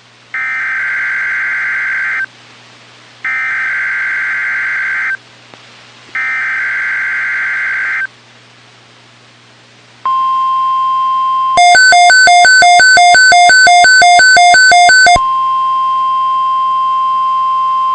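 NOAA Weather Radio SAME digital header for a Tornado Watch alert: three identical warbling data bursts of about two seconds each, a second apart. About ten seconds in the steady 1050 Hz weather-radio warning alarm tone starts, and for about three and a half seconds a louder, buzzy pulsing beep of about three pulses a second sounds over it.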